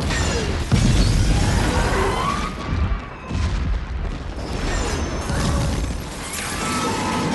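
Film sound effects of a derailing subway train crashing through a station: a sudden blast at the start, then a continuous din of crashing, grinding and screeching metal and shattering debris.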